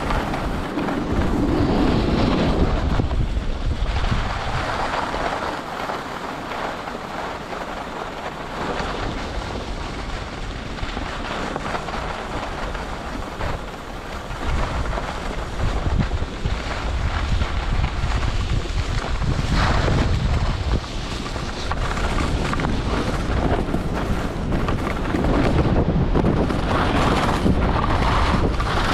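Wind buffeting a skier's action-camera microphone during a fast descent, a steady rumbling rush. Under it is the scrape of skis on groomed, packed snow, swelling louder with some of the turns.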